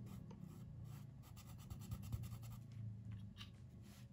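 Paintbrush stroking paint onto woven cloth: faint, rapid, scratchy brushing, over a low steady hum.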